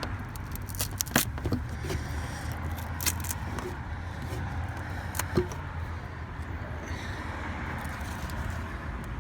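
A few sharp clicks and light scraping from tools prying at a car emblem and its retaining clip, over a steady low hum.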